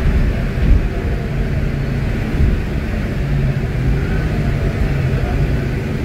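Volvo D8K 350 hp Euro 6 inline-six diesel engine of an articulated bus running, heard inside the passenger cabin as a steady low rumble and drone. There is a single thump just under a second in.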